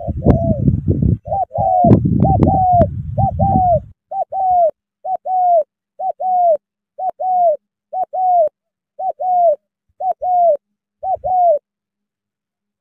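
Spotted dove cooing: a short note then a longer arched one, repeated about once a second, roughly a dozen phrases that stop near the end. A low rumbling noise lies under the first few seconds.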